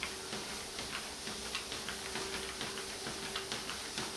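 Dog's claws ticking on a moving treadmill belt at a slow walk, several light clicks a second, over the steady hum of the treadmill motor.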